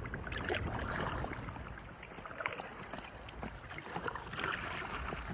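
Kayak paddle strokes in the lake water, with small irregular splashes and drips.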